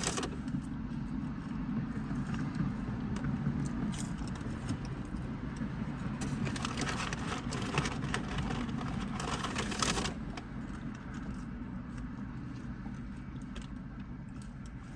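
Steady low rumble with bursts of rustling and crackling, as of something being handled, the longest from about six to ten seconds in.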